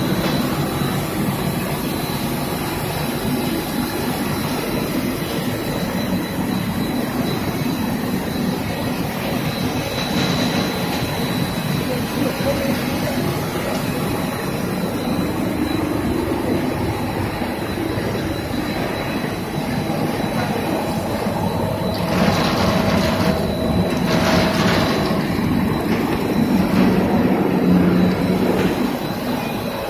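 Steady running noise of a twin-screw-extruder puffed-snack production line: the motors, fans and conveyors of the stainless steel dryer running together, with a thin high whine over a low hum.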